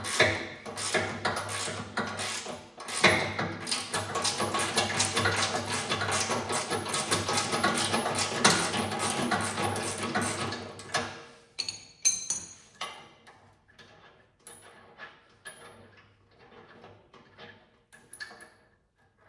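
Background music with a steady beat that fades out about two-thirds of the way through, followed by faint, scattered metallic clinks of tools and bolts.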